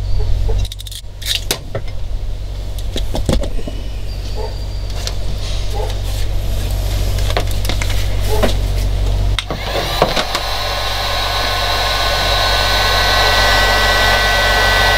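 Electric heat gun switched on about ten seconds in, running with a steady blowing hiss and a high whine while it shrinks heat-shrink on a crimped wire connector. Before it, scattered clicks of wires and tools being handled over a low rumble.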